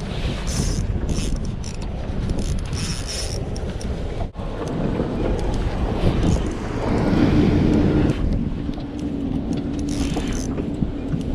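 Wind buffeting the microphone on an open boat, a steady rumble with short hissy gusts in the first few seconds. A steady low hum joins about seven seconds in.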